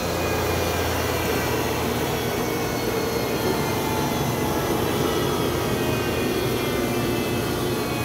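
1960 Bauerle DM71 thickness planer with a Hermance helix cutterhead running at high feed speed, planing a board of hard maple: a steady, loud rush of machine noise with a low hum underneath.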